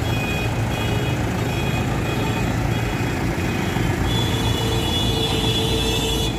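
Mahindra 575 DI tractor's four-cylinder diesel engine running steadily under load as it tows a fully loaded brick trolley through roadside mud. Repeated high beeps sound over it during the first second, and a steadier high tone joins from about four seconds in, from surrounding traffic.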